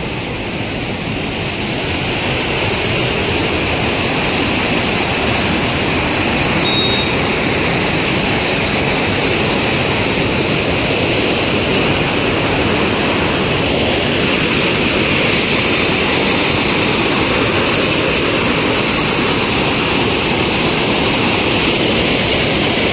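Canal water rushing and churning through a channel, a steady loud rush that grows a little louder in the first couple of seconds and turns brighter and hissier about fourteen seconds in.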